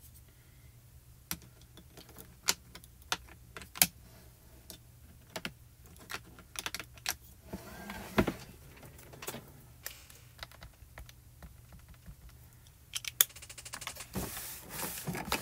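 Light taps and clicks of a small plastic ink cube and a stamping platform being handled as a clear stamp is inked, with a louder knock about halfway through and a quick flurry of clicks near the end.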